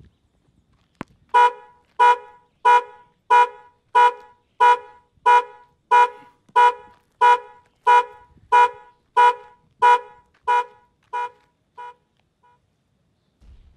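Car alarm sounding the horn in a steady pulse of honks, about one and a half a second and some sixteen in all, the last few fading; a sharp click comes just before the first honk.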